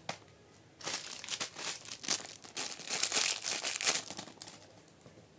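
Crinkling of plastic packaging being handled, a dense run of small crackles lasting about four seconds, loudest near the middle, after a single click at the start.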